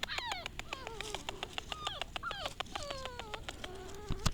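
Six-week-old pit bull puppy whimpering: a string of high-pitched whines that slide downward in pitch, mixed with quick sharp clicks. One louder click near the end.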